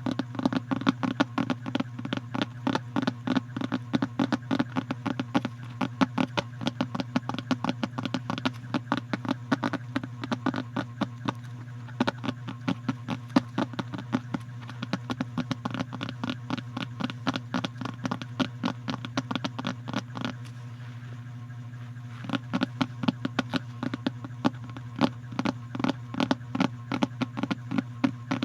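Rapid, irregular close-up clicks and taps over a steady low hum. The clicks stop for about two seconds roughly three quarters of the way through, leaving only the hum.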